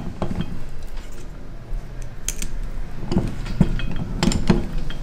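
Ring stretcher's steel mandrel and lever mechanism clicking and clinking as a silver ring is worked on it to round it out, a few scattered sharp metallic clicks.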